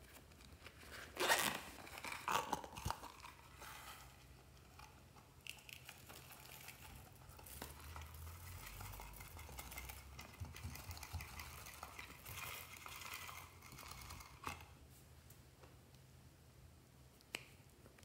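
Crinkling and rustling as a soft plastic cat-shaped zip pouch is squeezed and handled over a bowl of slime, loudest in a burst a second or two in, with a couple of sharp clicks near the end.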